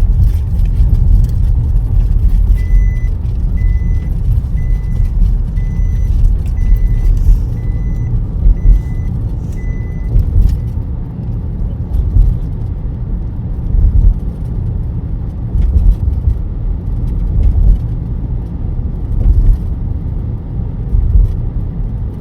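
Car driving, a loud steady low rumble of engine and road noise. In the first half, a run of about nine short high electronic beeps, evenly spaced just under a second apart, then stops.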